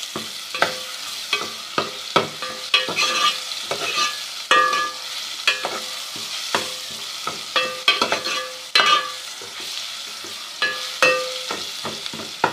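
Ginger-garlic paste and onions frying in ghee, sizzling steadily, while a spoon is stirred round the pan. The spoon knocks and scrapes against the pan irregularly, about one or two times a second, and the pan rings briefly after some knocks.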